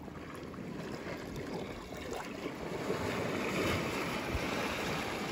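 Shoreline ambience: a steady rushing of wind and sea washing over the rocks, growing a little louder after about three seconds.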